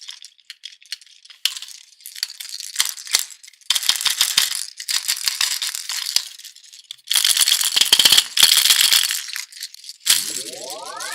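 Frozen play dough in mesh stress balls being crushed and squeezed, giving irregular bursts of dense, high crackling and rattling. Near the end a sound effect sweeps steadily upward in pitch.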